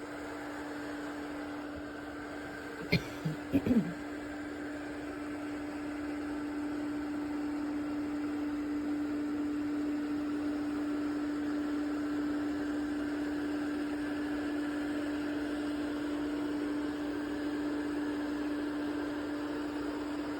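Eureka robot vacuum's motor running with a steady hum and a hiss of air, with a few sharp knocks about three to four seconds in.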